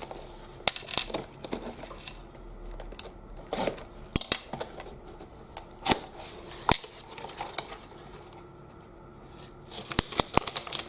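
A box of Fimo polymer clay being opened and its wrapped clay blocks handled, giving scattered sharp clicks and light knocks with brief rustling of packaging.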